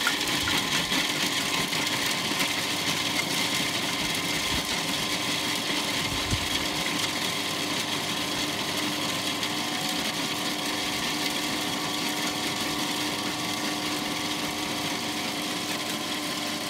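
Electric food processor running steadily, its blade chopping whole almonds down to small grains.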